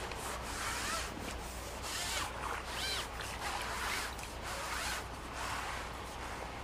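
A hooked fish being reeled in and drawn over the landing net: a string of irregular rasping, splashing bursts from the reel and the water.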